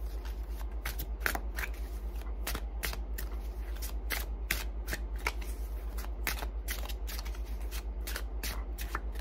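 A tarot deck being shuffled by hand, the cards snapping against each other in quick, uneven strokes, a few a second. A steady low hum runs underneath.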